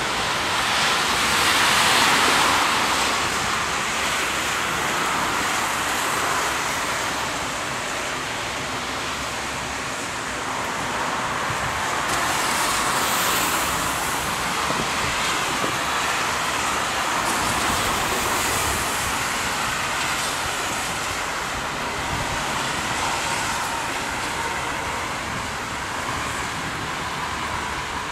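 Road traffic passing on a wet road: a steady hiss of tyres on wet pavement that swells several times as vehicles go by.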